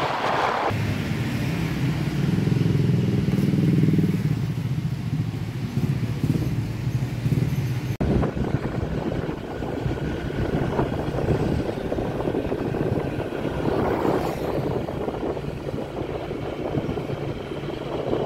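Motorbike engine running steadily while riding. About eight seconds in it cuts abruptly to street noise, with motorbike traffic passing.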